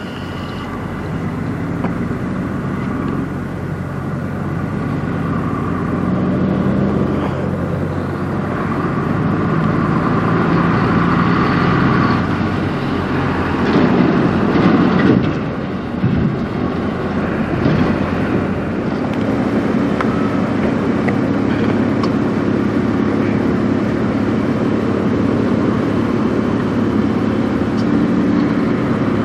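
Diesel semi-trucks passing on a highway one after another, a steady engine drone over tyre and road noise. The loudest pass comes about halfway through, as a tractor pulling a refrigerated trailer goes by close.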